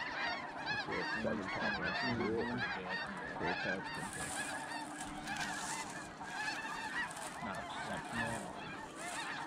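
Flock of snow geese calling: a continuous din of many overlapping honks.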